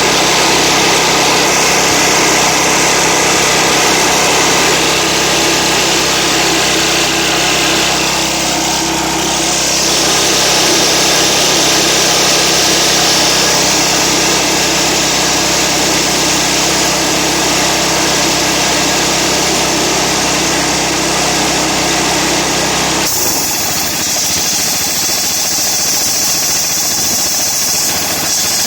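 Kawasaki gas engine running a two-stage Speedaire air compressor, working steadily as the pump fills the tank. About 23 seconds in, the sound changes abruptly and the engine drops back, typical of the pressure control idling the motor once the tank reaches its set pressure.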